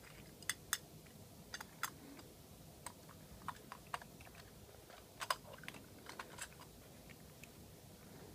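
Irregular light clicks and clacks from a hand working the moving parts of a die-cast alloy toy garbage truck and its plastic toy bin, with the sharpest clack a little past five seconds in.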